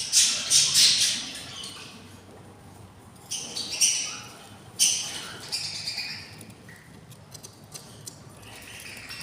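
Budgerigars in a nest giving harsh, raspy squawking calls in three bursts, the first lasting about a second and a half, with quieter chatter between them.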